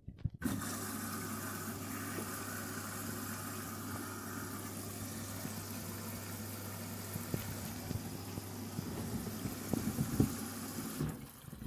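Candy washing machine filling at the start of its wash cycle: water hissing in through the inlet valve, with the valve's steady low hum. It cuts off near the end.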